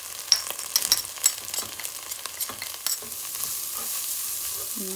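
Fried onions and spices sizzling in oil in a non-stick pan while a wooden spatula stirs them. A metal spoon makes sharp clicking taps over the first three seconds, and after that the sizzle settles into a steadier hiss.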